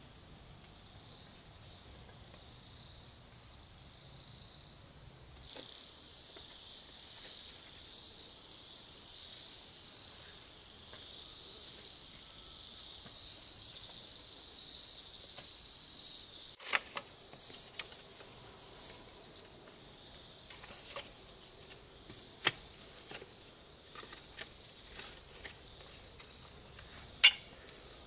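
Insects calling in a chorus of high-pitched trills that swell and fade about once a second. From a little past halfway, scattered sharp clicks and snaps, the loudest near the end.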